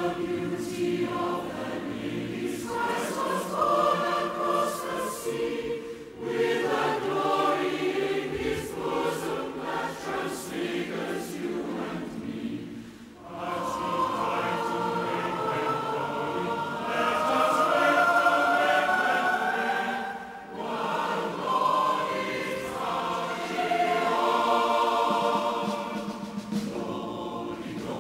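A choir singing in long phrases, with short breaks between phrases.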